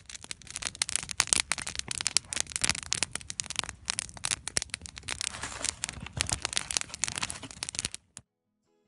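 Wood campfire crackling and popping, a dense run of irregular snaps that cuts off suddenly near the end.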